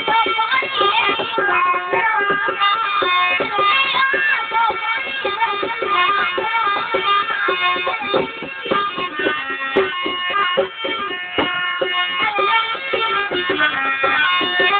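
Indian traditional music: a sliding, ornamented melody over steady held drone tones, with frequent hand-drum strokes.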